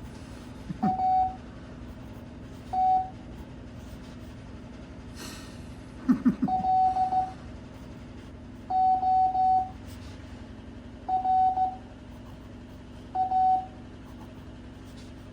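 Morse code (CW) practice tones at 5 words per minute: a single steady beep keyed into dots and dashes, forming one character every couple of seconds, six in all.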